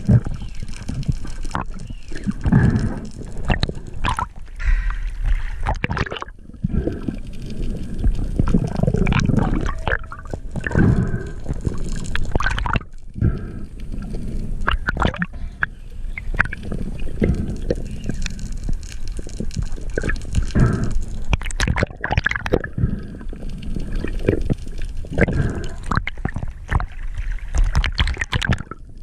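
Muffled underwater water noise picked up by a camera in a waterproof housing: irregular gurgling and sloshing surges with short crackles throughout.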